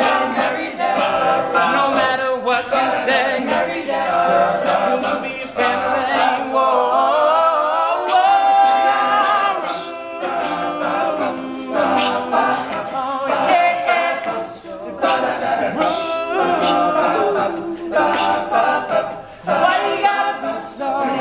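Male a cappella group singing in close harmony without instruments, with a solo voice riffing over the group about six to nine seconds in.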